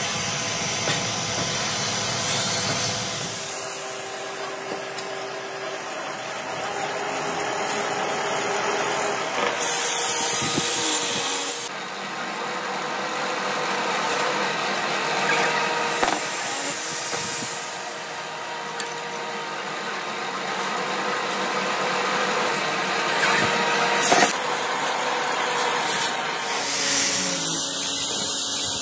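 Steady workshop machinery noise with scraping and handling of steel parts as tubing is worked and spring rod is wound into a coil, broken by a few short hissing bursts and one sharp knock near the end.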